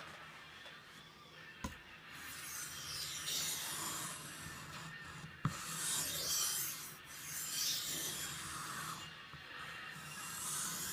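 A large knife blade being stroked across a King combination Japanese water stone, a rasping rub in about five long repeated strokes. There are two sharp clicks, one near the start and one about halfway through.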